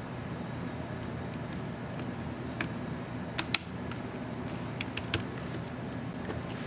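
A handful of sharp, irregular plastic clicks from an Asus X550C laptop keyboard key and keycap being worked, over a steady low hum.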